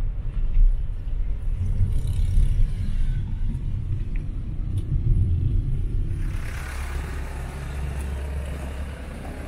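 Road rumble inside a moving taxi's cabin, steady and low. About six seconds in it cuts to a steady outdoor hiss over a low hum.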